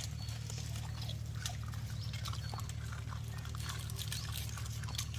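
Puppies and their mother dog eating, with many small, irregular wet smacking and lapping clicks over a steady low hum.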